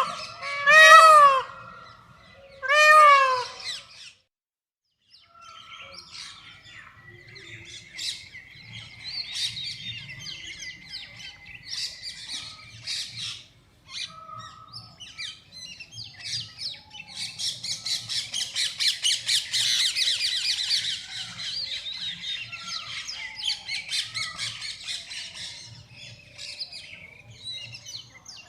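Indian peafowl (peacock) giving loud, wailing calls, two close together right at the start and a third about three seconds in. After a short break, many smaller birds chirp and twitter in a busy chorus that is densest in the middle and thins toward the end.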